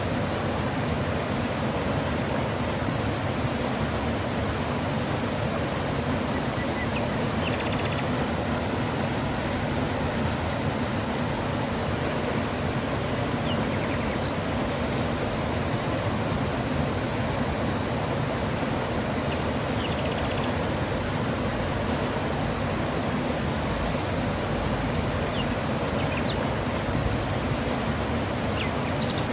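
Mountain river flowing steadily, an even rushing of water. A faint high chirp repeats a couple of times a second behind it, with a few brief higher calls.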